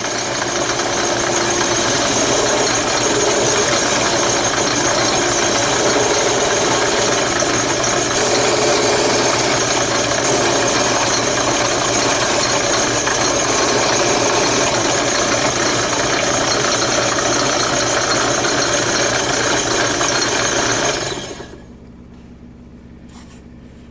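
Drill press spinning a sanding drum as the edge of a wooden template is held against it: a loud, steady sanding noise over the motor's hum. Near the end the sanding stops and only the drill press is left running, much quieter.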